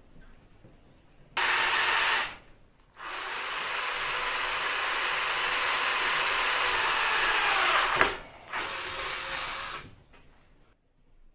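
Electric drill boring a locating-pin hole into a motorcycle handlebar through insulation tape. First comes a short burst, then a run of about five seconds ending in a sharp click, then one last short run.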